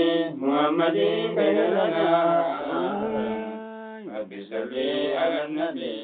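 A man's voice chanting a manzuumaa, an Oromo Islamic devotional poem, in a sung, melismatic line. About three seconds in he holds one long note for about a second, pauses briefly, then goes on.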